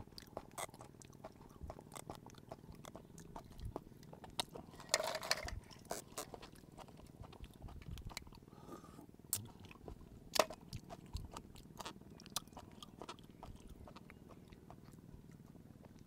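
Faint close-up eating sounds of raw spiny lobster: scattered soft clicks and smacks of chewing, with brief slurps as the roe and fat are sucked from the head shell.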